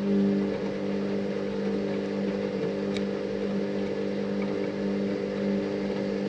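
Washing machine running: a steady motor hum over a soft whooshing noise, with one faint tick about three seconds in.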